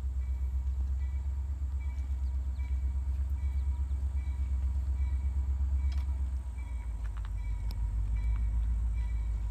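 Low, pulsing rumble of an approaching EMD GP40-2 diesel locomotive's turbocharged V16 engine, still out of sight down the line. Its drone shifts in pitch about six and a half seconds in and grows slightly louder.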